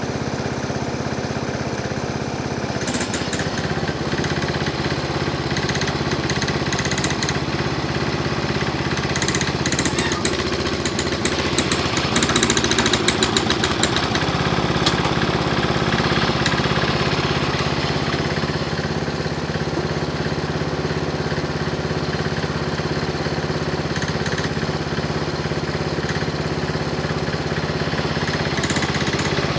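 Craftsman garden tractor engine running steadily while its front-end loader digs dirt, the engine note shifting a few seconds in and again midway. Around ten to fourteen seconds in it gets louder, with rapid clattering over the engine.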